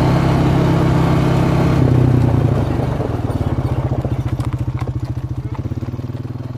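Small motor vehicle engine running steadily, then easing off after about three seconds into a slower, pulsing putter as the vehicle slows. A few faint sharp clicks come through in the second half.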